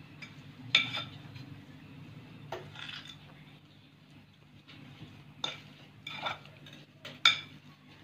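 A fork clinking and scraping against a ceramic plate while mashing and mixing a soft potato filling. There are several sharp clinks, the loudest about a second in and near the end.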